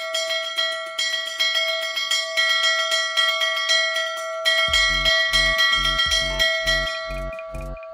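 Bell-like chimes struck rapidly over and over, holding several ringing pitches. A little past halfway a deep pulsing beat joins in, about two and a half pulses a second.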